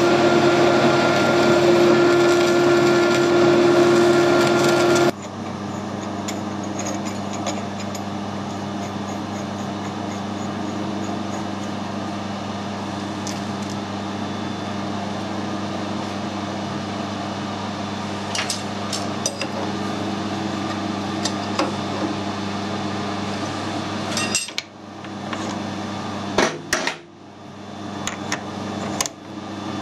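Metal lathe running steadily for about five seconds while turning a small stainless steel part. It then cuts to a quieter steady machine hum, with scattered metallic clicks and knocks in the second half as a small part is handled and fitted into a collet chuck.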